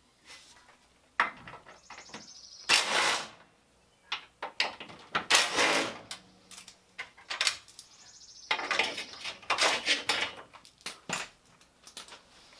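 Hand tools working on bolts of a car's front bumper support: irregular clicks, knocks and metallic clatter, with a few louder short bursts.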